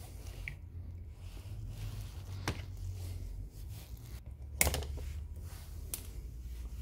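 A few sharp clicks and taps of pliers and a small cartridge fuse being handled on a TV power board, the loudest about two-thirds of the way through, over a steady low hum.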